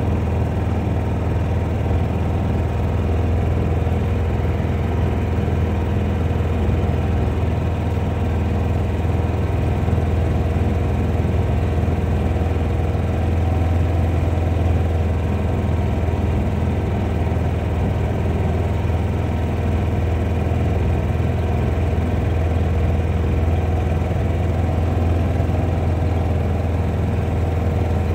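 A Kawasaki Mule side-by-side's engine running at a steady speed under way, a low, even drone with no change in pace.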